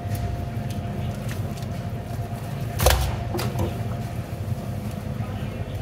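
A large halibut flipped over onto a plastic cutting board: one heavy slap about three seconds in, with a lighter knock just after, over a steady low background hum.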